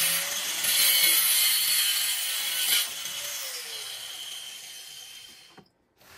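Small hand-held angle grinder cutting through grey PVC drain pipe, a loud high-pitched cutting noise for about three seconds. The noise then fades as the disc winds down.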